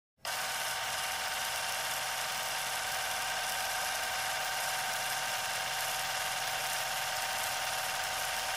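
A steady, unchanging electric whir made of several held high tones over a light hiss.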